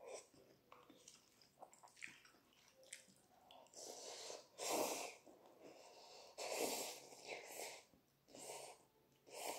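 Instant cup noodles slurped up with chopsticks: several long, airy slurps, the loudest about five and seven seconds in, after a few seconds of quiet chewing and small clicks.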